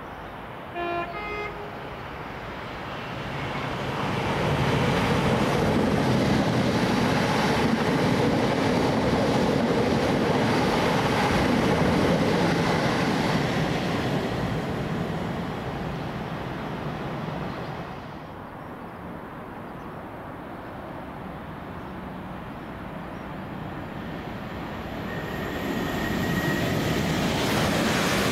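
A brief train horn toot about a second in, then a train passing through at speed: a loud rush of wheels on rail lasting about ten seconds that fades away. Near the end the noise builds again as another train approaches.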